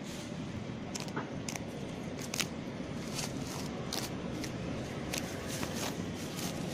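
A puppy chewing on a piece of white plastic, making scattered crinkling, crackling clicks, over a steady low rumble of road traffic.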